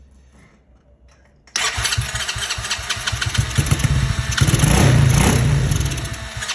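Tao T Force's small engine catching about a second and a half in on starter fluid sprayed into the carburettor, then running unevenly. Its revs rise and fall back near the middle. It is running only on the starter fluid and won't run off its own fuel.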